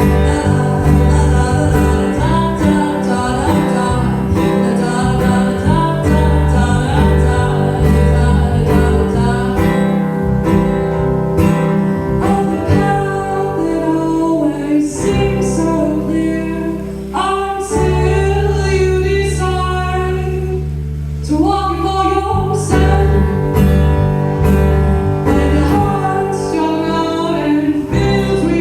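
A woman singing an original song to guitar accompaniment, with steady plucked and strummed chords under the melody.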